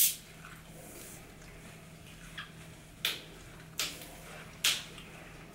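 Eating sounds: a few separate sharp smacking clicks, the loudest three spaced under a second apart in the second half, over a faint steady low hum.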